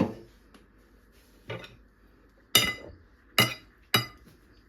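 Sharp clinks of a utensil knocking against a bowl, five knocks spread over about four seconds, the louder ones ringing briefly: garlic being tapped off into the bowl.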